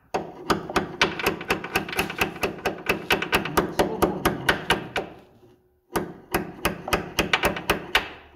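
Rapid hammer blows on metal, about five a second, with a short pause about five seconds in before they resume: the slipped pressed-on locating collar on a front anti-roll bar being knocked back along the bar into its original position.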